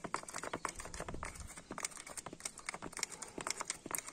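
Grease gun pumping grease into a vertical pivot pin of a tractor's articulation joint, its mechanism clicking and clacking in a quick, irregular run.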